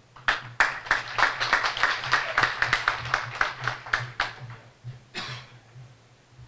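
Audience applauding, many hands clapping at once; the applause dies away about four seconds in.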